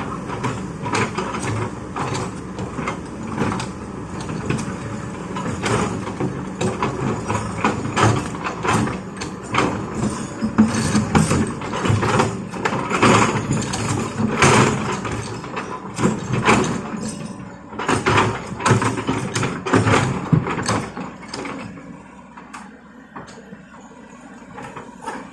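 Excavator at work: its diesel engine running under many irregular knocks, clanks and scrapes of the bucket and stones, which die down near the end.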